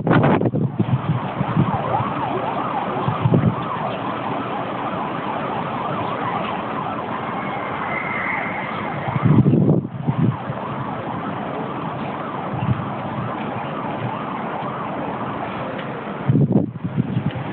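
Steady rushing wind ahead of a rainstorm, with gusts buffeting the microphone at the start, about ten seconds in and near the end.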